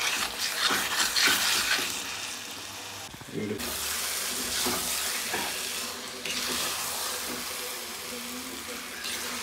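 Soya chaap frying in oily tomato masala in a pan, sizzling and crackling as it is stirred with a spoon. The sizzle is loudest for the first two seconds, then settles into a quieter, steady hiss.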